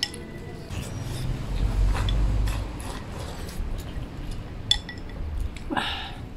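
People eating from porcelain bowls with chopsticks: scattered light clicks of chopsticks against the bowls and small eating sounds, with a brief pitched mouth sound near the end. A low rumble is the loudest part, at about two seconds in.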